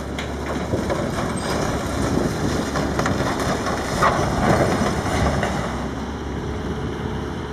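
Storm-damaged steel silo buckling and folding over as it is pulled down by a cable: creaking, crumpling sheet metal, loudest about four to five seconds in, over a steady low rumble.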